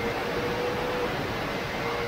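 Onboard sound of a Honda CBR1000RR-R Fireblade inline-four superbike at speed on track: a steady rush of wind noise over the microphone with the engine's high, even note underneath, which drops away about a second in.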